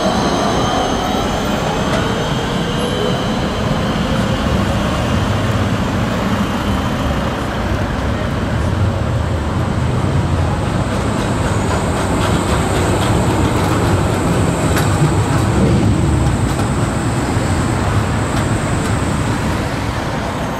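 Trams running past on street track: a steady rumble of steel wheels on rails, with a thin, high wheel squeal in the second half.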